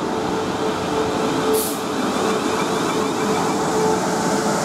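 South Western Railway Class 450 Desiro electric multiple unit running alongside the platform as it pulls in, with a steady rumble and a steady electric hum. A short high hiss of air comes about one and a half seconds in.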